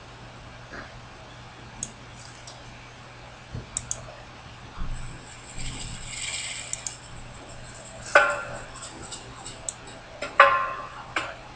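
A few sharp clicks and a short hiss, then two louder clinks with a brief ring, over a low steady hum.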